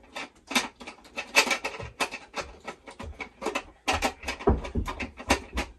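Irregular clicks, rustles and light knocks of small household items being handled while a room is tidied, with a few dull thumps about four to five seconds in.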